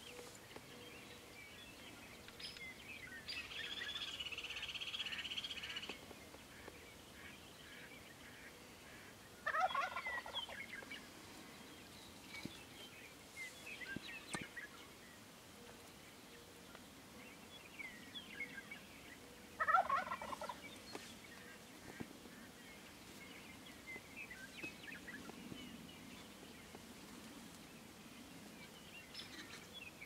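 Wild turkey gobbling twice, about ten seconds apart, each gobble a quick rattling burst lasting about a second.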